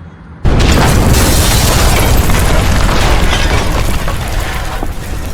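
A sudden loud explosion-like boom about half a second in, becoming a dense rumbling blast that holds for several seconds and slowly dies away.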